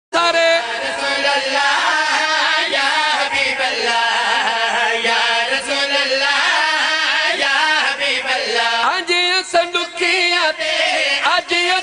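Several men chanting a devotional qasida refrain together into microphones, amplified over a sound system. It cuts in abruptly at the start and stays loud throughout.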